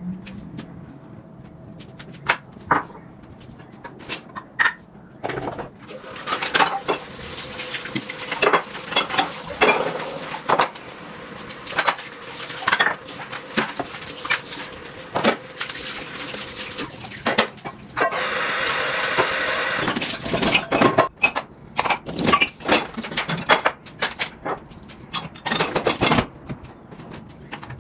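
Dishes and household objects being handled and set down, a long run of clinks, knocks and clatters, with a steady rushing noise lasting about two seconds past the middle.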